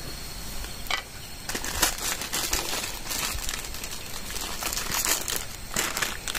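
Plastic instant-noodle packet crinkling and rustling as it is handled and torn open, in two spells, with a single sharp click about a second in.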